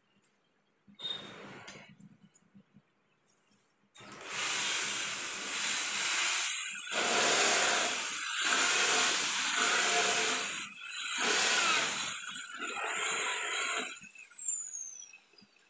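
Handheld electric power tool working a wooden plank: it starts about four seconds in with a high motor whine that wavers in pitch as it bites into the wood in several passes, then is switched off and whines down with a falling tone near the end.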